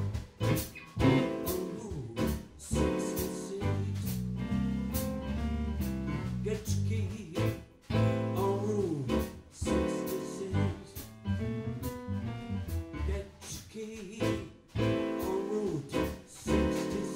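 A band playing bluesy jazz, with a singer and piano.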